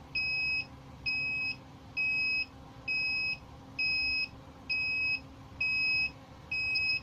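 XM-18 incubator controller's alarm beeper sounding repeated half-second beeps at one steady pitch, a little over one per second. It is the controller's warning that the temperature is out of range.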